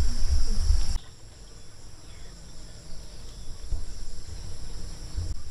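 A steady, high-pitched insect chorus. A loud low rumble runs under it for the first second and cuts off abruptly.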